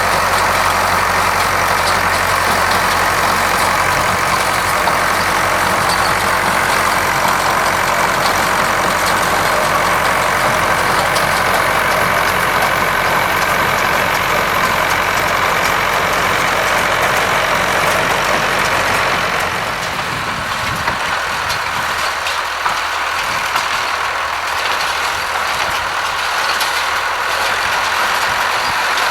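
Massey Ferguson 575 tractor's diesel engine running steadily while it drives a square baler making hay. The deep rumble drops off somewhat about two-thirds of the way through while the engine keeps running.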